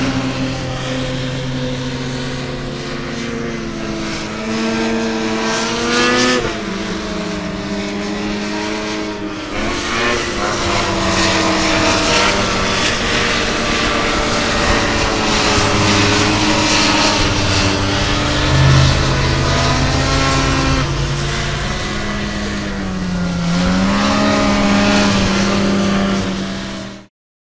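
Snowmobile engine running and revving, its pitch rising and falling several times, with the sound cutting off abruptly near the end.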